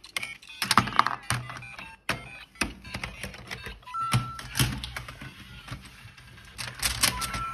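LEGO Super Mario interactive figure playing short electronic bleeps and jingles from its built-in speaker, with sharp plastic clicks and clacks as it is set down on the bricks and set pieces are moved. The loudest clicks come about a second in, and a held beep sounds about four seconds in.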